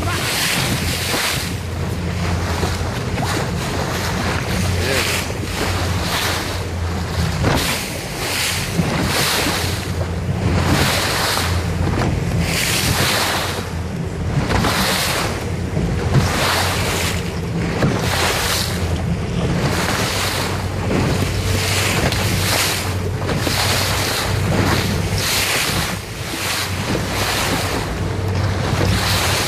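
A small powerboat's engine drones steadily while the hull slaps through 3-to-5-foot seas, with rushes of water and spray about once a second. Wind buffets the microphone throughout.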